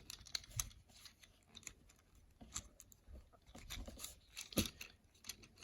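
Faint, scattered clicks and small knocks of a plastic Transformers deluxe figure's parts being folded and snapped into place by hand, with one sharper click about four and a half seconds in.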